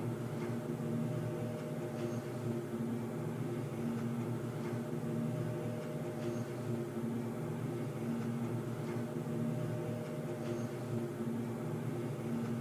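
Underground ambience: a steady low droning hum made of several held tones that slowly swell and fade, with faint clicks about every two seconds.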